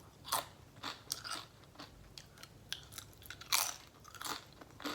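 Close-up crunchy chewing of a mouthful of food, in irregular crunches, the loudest about three and a half seconds in.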